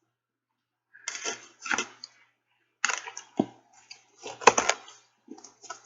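Close-up wet chewing and mouth smacking of a person eating a hot dog, in irregular short bursts with brief pauses between them.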